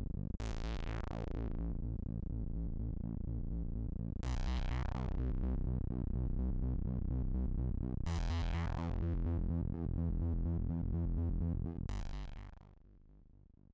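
Electronic background music on a synthesizer: a steady low repeating pattern with a sweep falling in pitch about every four seconds, fading out near the end.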